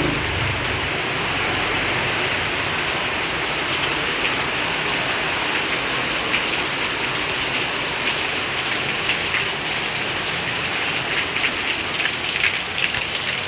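Rain falling steadily with an even hiss, individual drops ticking more often in the second half.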